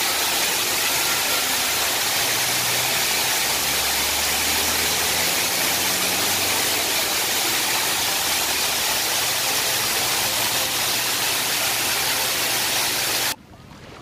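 Waterfall cascading down a rock face: a loud, steady rush of falling water, with a faint low hum underneath from about two seconds in. It cuts off suddenly near the end, giving way to much quieter small waves washing onto a beach.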